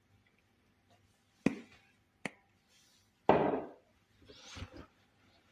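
Kitchen containers and utensils being handled: a sharp knock, a short click, then a louder clatter and a brief rustle.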